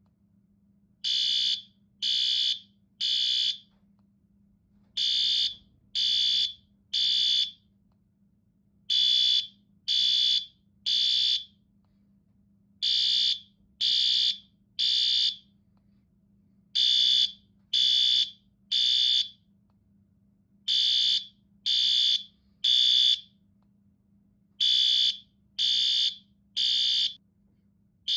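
Fire alarm sounding the temporal-three evacuation pattern: three high-pitched beeps half a second apart, then a pause of about a second and a half, the cycle repeating every four seconds. A faint steady hum lies underneath.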